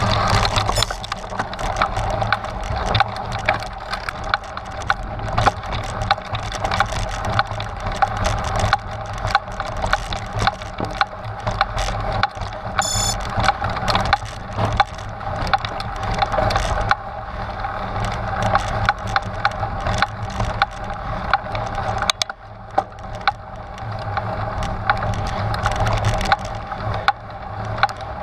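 Trek Stache 29-plus hardtail mountain bike ridden over rough, rocky trail: tyres crunching over rock and gravel, with a constant clatter of irregular clicks and rattles from the bike.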